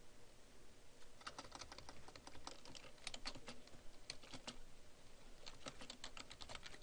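Computer keyboard typing: faint keystrokes in several short bursts, starting after a quiet first second.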